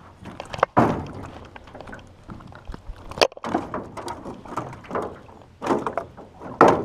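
A little hooked pickerel being landed into a small boat: irregular splashes, knocks and thumps against the hull, with a sharp click about three seconds in and louder bursts near the end.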